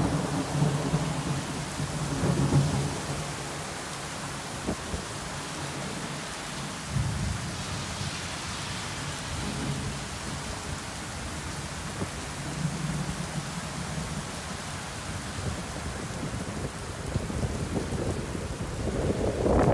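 Heavy rain pouring down steadily, with low rumbles of thunder near the start and again about two-thirds of the way through.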